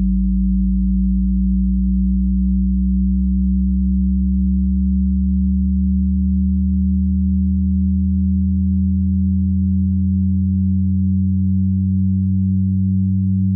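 Electronic drone of several steady, low pure tones layered together. A very deep tone comes in sharply at the start and slowly gives way to a slightly higher one.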